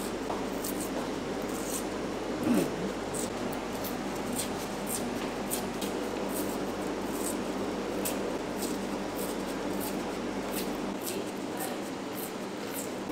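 Paper wrapping being peeled and crinkled off chocolate sticks by gloved hands: light, scattered crackles over a steady background hiss, with a brief squeak about two and a half seconds in, the loudest moment.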